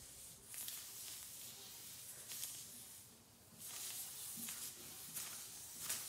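A tubeless-tyre plug kit's spiral rasp being worked in and out of a puncture in the tread, making a faint rasping noise in several short spells.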